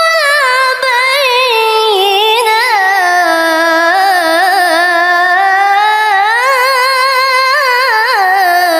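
Qur'an recitation in the melodic mujawwad style: one voice holds a single long, ornamented melismatic phrase in one breath, with quick trills along the line. The pitch sinks slowly from a high start, climbs again about two-thirds of the way through, and falls back near the end.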